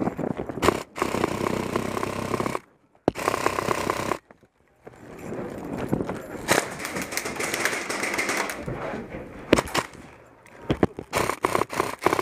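Airsoft rifle fire in rapid clicking runs, mixed with the player's footsteps and gear rustling. The sound cuts out briefly twice, about three and four and a half seconds in, and a quick string of sharp clicks comes near the end.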